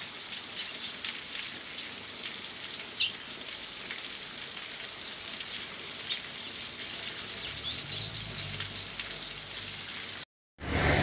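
Heavy rain pouring down, a steady hiss, with a few short bird chirps over it. The sound cuts off abruptly near the end.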